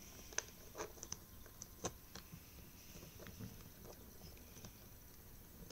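Faint, irregular clicks and taps of plastic Rubik's cube pieces being handled and pushed into place during reassembly.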